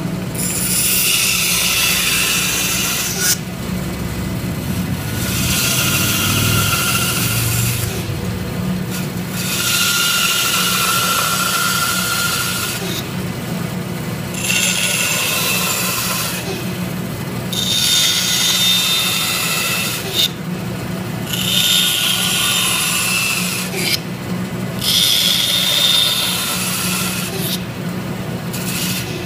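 Bandsaw running with a steady motor hum while its blade cuts through a block of wood in a series of curved cuts, giving a loud hissing rasp that drops out briefly every few seconds as the blade runs free between cuts.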